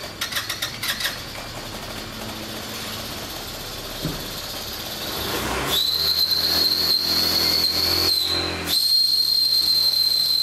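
Air rushing with an even hiss, then about six seconds in a small machine starts with a steady high-pitched whine over a low hum; it drops out for a moment about two seconds later and starts again.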